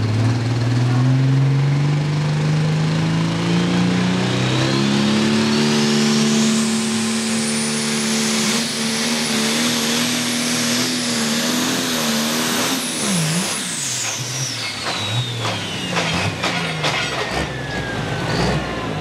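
Turbocharged pulling tractor engine revving up hard on launch and holding high revs under load, with a high turbocharger whine climbing over it. About two-thirds through, the engine drops off, the turbo whine winds down steadily, and irregular pops and knocks follow.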